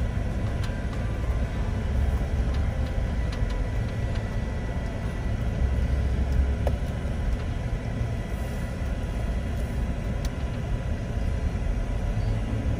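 Steady low rumble of a vehicle driving slowly on a dirt road, heard from inside the cab: engine and tyre noise over the rough track.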